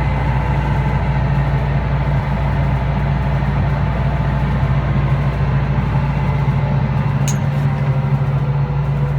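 Heavy farm machine's diesel engine running steadily under a constant low drone.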